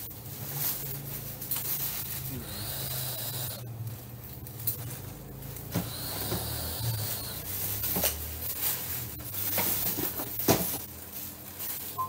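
Rustling and handling of a large paper shopping bag as things are moved about inside it, with a few sharp knocks, over a low steady hum.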